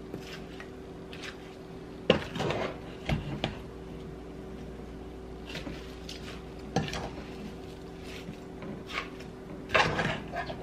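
A metal spoon clinking and knocking against a pot at irregular intervals while greens and crushed tomatoes are stirred together, over a steady low hum.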